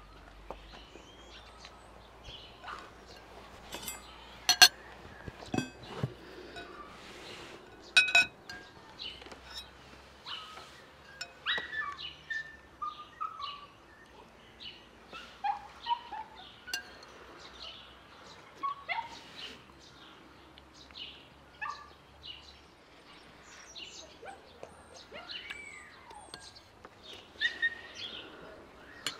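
Ceramic bowls and metal spoons clinking at the table, the two loudest clinks about four and eight seconds in, with short bird chirps scattered throughout.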